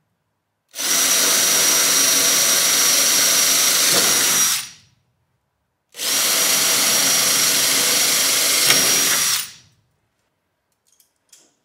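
Bosch cordless drill drilling two holes through sheet metal, two runs of about four seconds each with a steady high whine, each winding down as the trigger is released.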